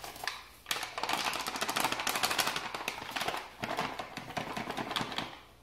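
Flour being poured from a paper flour bag into a glass bowl: a dense, rapid crackle of the bag's paper and the flour sliding out, starting about a second in and stopping shortly before the end.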